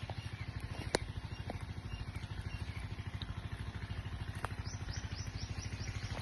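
A small engine running steadily with a rapid, even beat of about ten pulses a second. A sharp click comes about a second in, and a quick run of short high chirps near the end.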